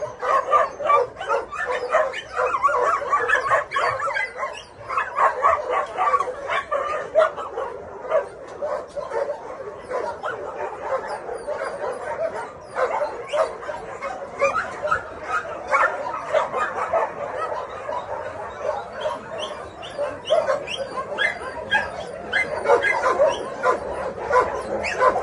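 Dogs barking and yipping, a steady stream of short overlapping calls with no pause.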